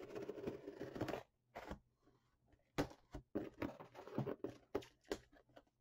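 Scissors slitting the packing tape along the seam of a cardboard shipping box: a continuous rasping scrape for about the first second, then a series of short scrapes, rustles and knocks as the cardboard flaps are worked open.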